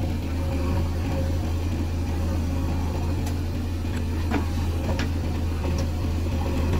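Diesel engine of a JCB 3DX Eco backhoe loader running steadily as the backhoe arm works, loading soil into a tractor trolley. A few light knocks come about three to six seconds in.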